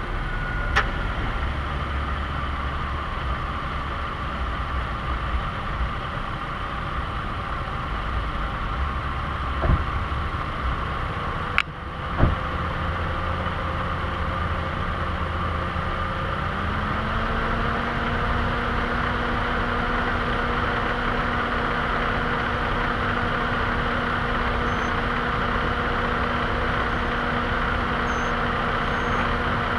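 A vehicle engine idling steadily, its hum stepping up slightly in pitch a little past halfway through, with a few sharp clicks in the first half.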